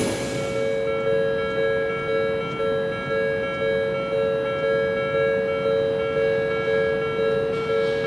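Japanese railway level crossing warning bell ringing, a steady electronic 'kan-kan' clang at about two strikes a second, signalling that the crossing is closed for an approaching train.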